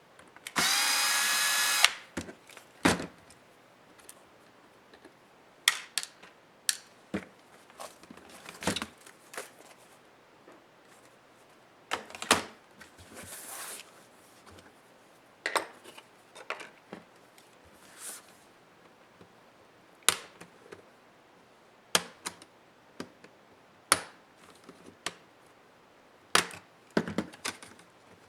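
A small electric screwdriver whirs for about a second and a half near the start. After that come scattered sharp clicks and taps, as of small screws and plastic laptop parts being handled.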